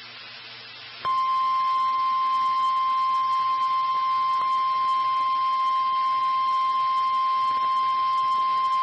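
Emergency alert attention tone: after about a second of faint hiss, a single steady high-pitched tone comes on and holds unchanged, the signal that a warning message follows.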